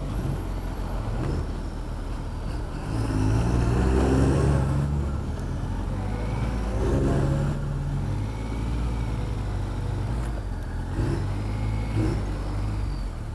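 Motorcycle engine running at low speed in town traffic, its note rising and falling as the rider opens and closes the throttle, loudest about four seconds in.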